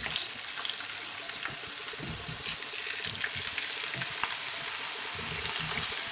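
Raw potato pieces frying in hot vegetable oil in a frying pan, a steady sizzle with fine crackling, as more pieces are set into the oil.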